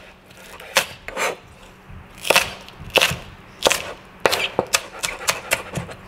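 Chef's knife slicing green onions on a cutting board: a series of sharp chops against the board, unevenly spaced, coming faster in the second half.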